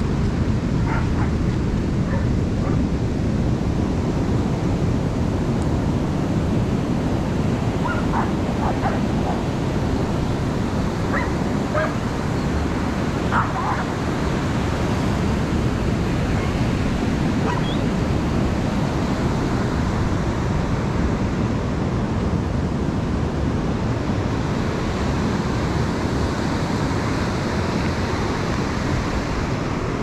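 Steady wash of surf breaking on the beach, with a dog barking in short, high yips now and then during the first half.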